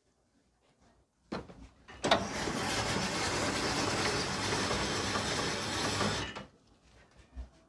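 Old cast-iron ice-shaving machine shaving a block of ice into a bowl: a steady, dense grinding that starts about a second and a half in, runs for about four seconds, and cuts off abruptly.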